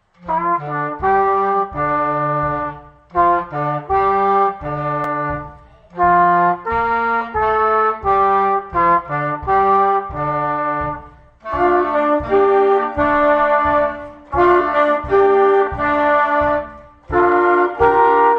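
Youth wind band playing a piece, with brass and saxophones holding chords in short phrases separated by brief breaks. The sound becomes fuller about halfway through.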